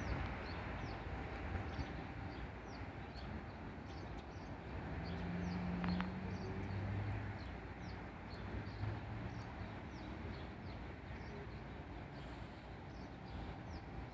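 Mallard ducklings peeping faintly, a steady stream of short, high, falling peeps, over a low background rumble.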